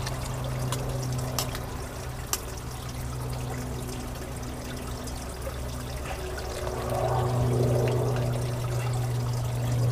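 Food sizzling and bubbling in a small camping pot over a bioethanol spirit burner as it is stirred, with a few light clicks of the spoon against the pot in the first few seconds. A steady low hum runs underneath.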